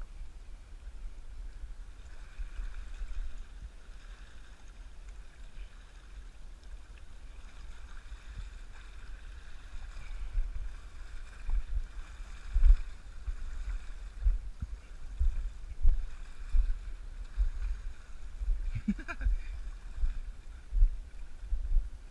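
Wind buffeting the microphone in irregular low rumbling gusts, which grow stronger and more frequent in the second half, over a faint steady hiss of water on a rocky shoreline.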